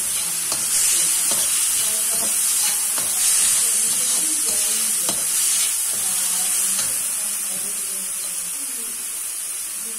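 Vegetables sizzling in a hot wok with sauces just added, stirred with a spatula that knocks and scrapes against the pan now and then. The sizzle eases a little toward the end.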